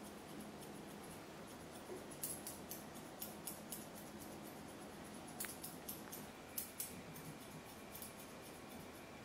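Grooming scissors snipping through a Pomeranian's fluffy coat: quick runs of short, crisp cuts, one starting about two seconds in and another from about five and a half seconds.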